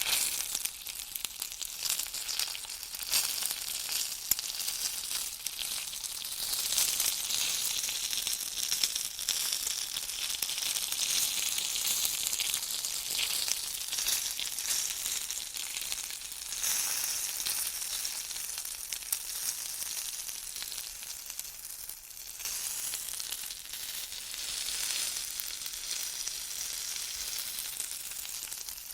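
Bacon frying in a pan: a steady sizzle with dense, fine crackling and popping of the fat.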